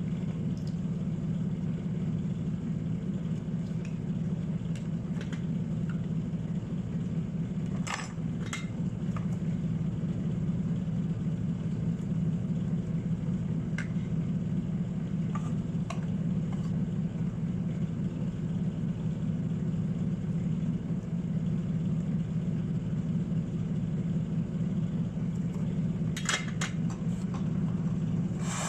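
Steady low electric hum from a small motor or blower running without a break, with a few sharp light clicks and taps: one pair about eight seconds in, a couple more a little later, and a cluster near the end.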